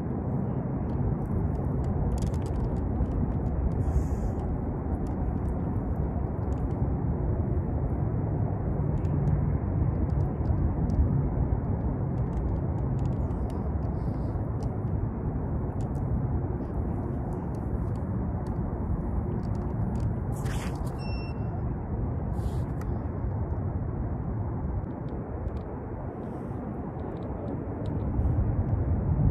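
A steady low outdoor rumble with no speech or music, and faint clicks scattered through it. One brief sharp higher sound comes about twenty seconds in, and the rumble swells slightly near the end.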